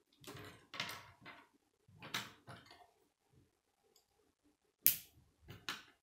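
Plastic K'nex rods and connectors clicking and rattling as they are handled and snapped together, a run of short clicks in small clusters, the sharpest one a little before five seconds in.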